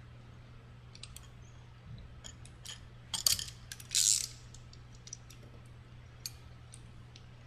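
Irregular metallic clicks and clinks of a wrench and bolts being worked on the drive hub mounting of an indoor cycling bike, with a quick cluster of clicks just past three seconds and a short rasping scrape about four seconds in. A steady low hum runs underneath.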